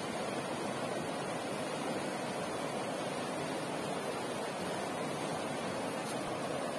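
River rapids rushing over rocks: a steady, unbroken water noise.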